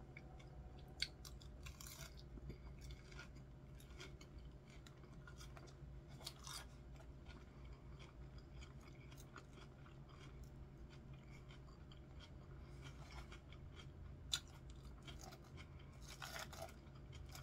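Faint chewing and crunching of a chicken salad with iceberg lettuce, eaten close to the microphone. A few short clicks are scattered through it, over a low steady hum.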